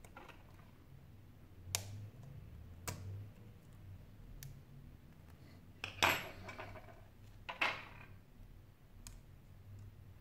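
Small metal hand tools clicking and scraping against an opened smartphone's frame and parts: a handful of sharp, separate clicks. The loudest comes about six seconds in, with a short scrape.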